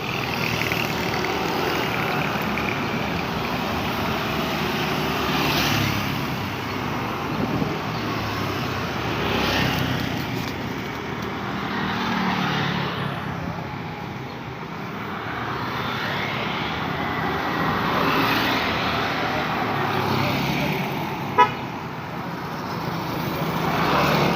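Busy road traffic: cars and motorbikes passing one after another in a steady wash of engine and tyre noise that swells as each goes by. A short, sharp horn beep sounds about 21 seconds in.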